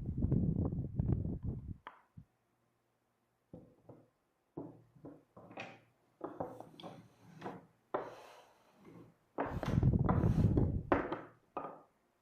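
Cedar boards being handled and knocked together in irregular bursts, with wooden thunks and scraping.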